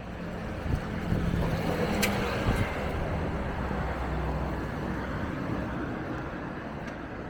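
Street traffic: a motor vehicle goes by, its engine hum and road noise swelling and easing over a few seconds, with a single sharp click about two seconds in.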